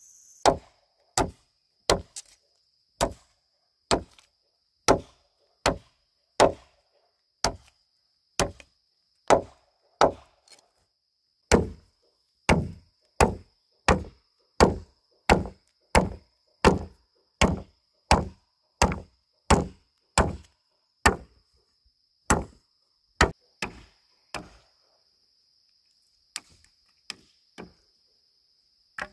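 A long series of sharp chopping blows from a hand tool, roughly one a second and quickening a little after the middle, stopping about 24 seconds in with a few fainter knocks after. A cricket chirrs steadily underneath.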